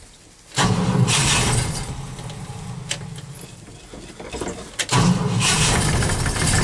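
A cold car engine cranking on the starter without catching, in two separate tries: one begins about half a second in and fades away, and the next begins near the end. It is a hard cold start in below-freezing weather.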